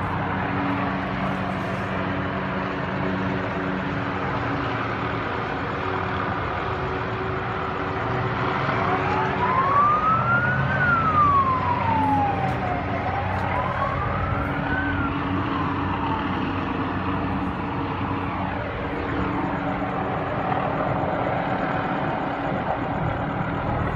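Police siren wailing, rising and falling twice about a third of the way in, over a steady hum of engines and traffic.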